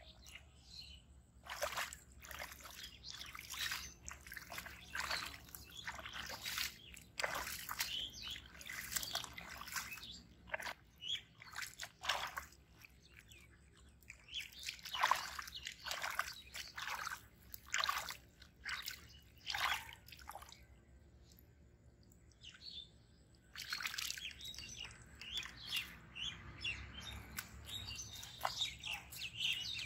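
Wet mud squelching and muddy water sloshing in repeated irregular bursts as hands and feet work through a shallow mud pool, with birds chirping.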